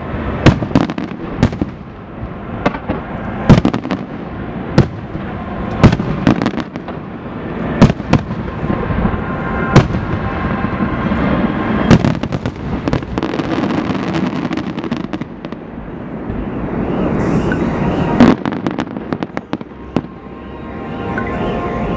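Aerial fireworks: a rapid series of loud shell bursts, bangs every second or so over continuous crackling and rumbling. Music fades in near the end.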